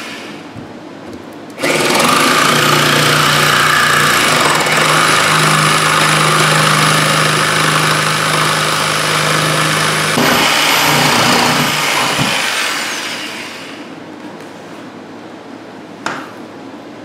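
Corded jigsaw cutting out a square hole through the OSB wall sheathing, starting abruptly about a second and a half in and running steadily for about ten seconds before fading out. A single sharp knock near the end.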